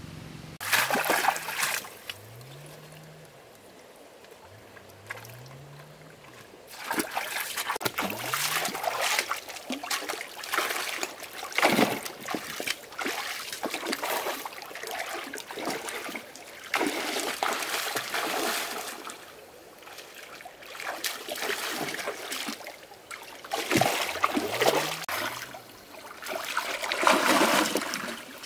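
Water splashing in irregular bursts, with trickling in the quieter stretches.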